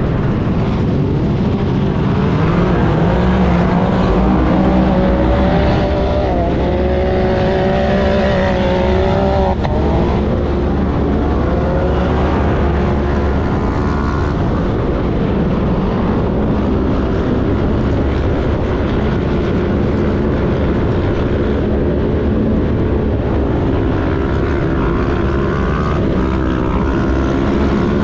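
Race UTV's engine running hard, heard from on board. Its pitch climbs from about six seconds in and drops suddenly around ten seconds, then holds at a steady high level.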